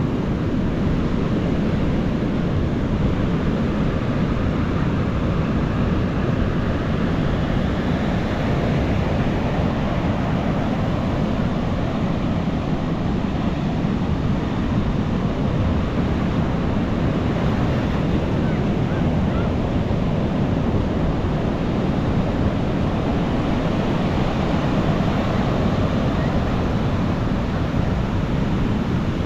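Ocean surf washing onto a beach, a steady dense rush of breaking waves strongest in the low range, with wind buffeting the microphone.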